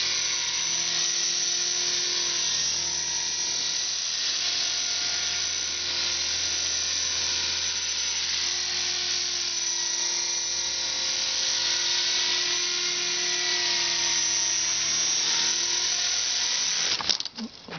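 Electric Align T-Rex 450 RC helicopter's motor and rotor whining steadily in flight, the pitch wavering slightly as the head speed changes. Near the end the whine cuts off suddenly, followed by a few sharp knocks.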